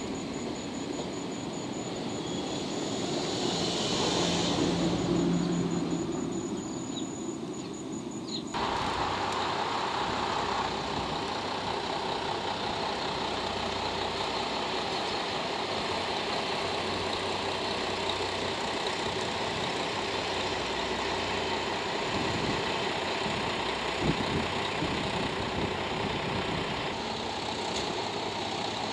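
Diesel railcar engine idling steadily, a JR Shikoku KiHa 32. For the first several seconds a louder rumble swells and fades, then the sound changes abruptly to a steady idle, with one short knock late on.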